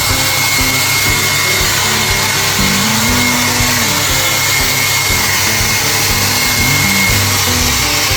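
Hair dryer blowing steadily, with a thin high whine from its motor, over background music.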